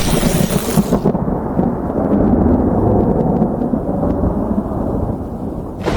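Thunder: the tail of a sharp crackling clap that ends about a second in, then a long low rumble.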